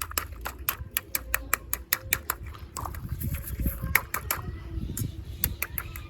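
Plastic packaging being handled, with rapid irregular sharp clicks and crackles, several a second, over a low rumble of handling noise.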